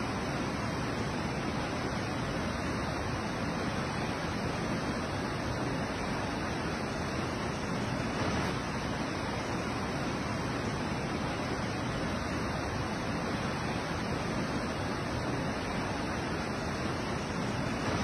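Waterfall pouring over rock into a plunge pool: a steady, even rush of falling water.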